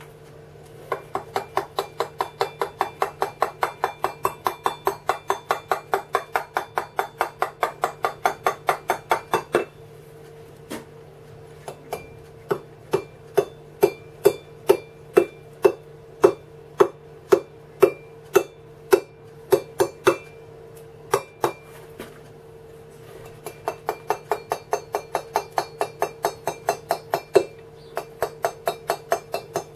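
Wooden mallet striking a steel chisel into stone, cutting feather detail: quick, even taps at about four a second, slowing to about two a second through the middle, then quick again near the end, with two short pauses between runs.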